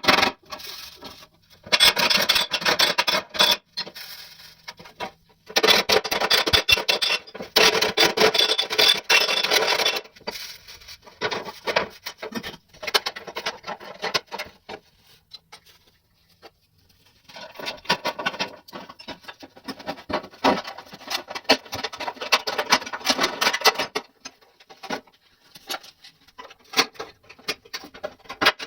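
Abrasive rubbing in rapid strokes against a hard surface. It comes in three main bouts of a few seconds each, the longest in the middle, with quieter scratching in the pauses between.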